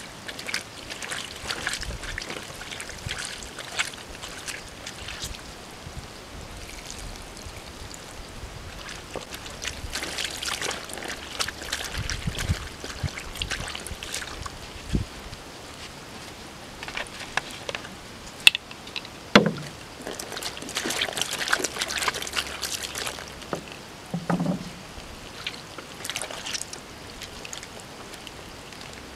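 Water sloshing and splashing in uneven bursts as hands wash and scrub raw pig intestines in a shallow banana-leaf-lined tray, with a few sharp clicks about two-thirds of the way through.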